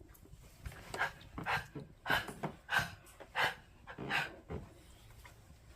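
A dog coughing in a fit of about six hacks, roughly two thirds of a second apart, starting about a second in.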